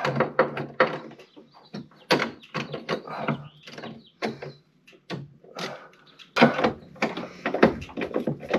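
Irregular metal clicks, knocks and scrapes of hand tools and bolts as a wiper motor delete plate is fastened to a car's firewall, with a denser run of knocks after about six seconds.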